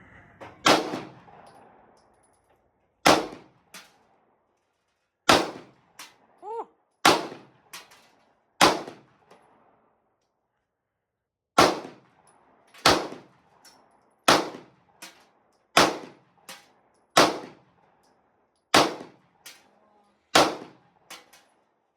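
Rifle shots at a shooting range: about a dozen sharp cracks, roughly one every one and a half seconds, with a pause of about three seconds midway. Fainter cracks fall between some of the shots.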